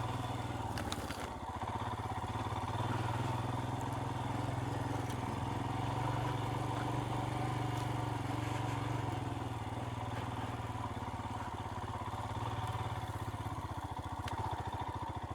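Royal Enfield Himalayan's single-cylinder engine running steadily as the motorcycle is ridden at low speed, its note rising a little and easing back around the middle.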